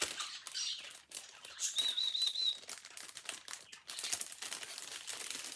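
Pet birds chirping and calling, with a short high warbling trill about two seconds in, over the crinkle and crackle of plastic packaging being handled.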